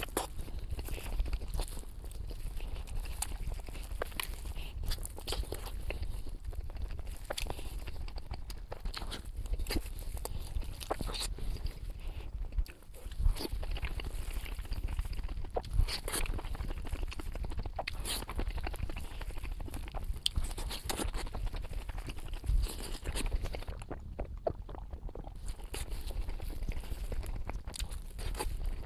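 Close-up chewing and crunching of food, a dense run of irregular crackles and clicks over a low rumble, with a brief break about 13 seconds in.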